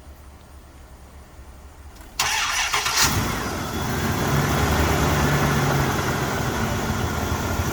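Second-generation Dodge Ram pickup's engine being started: a short burst of starter cranking about two seconds in, then the engine catches about a second later and settles into a steady idle.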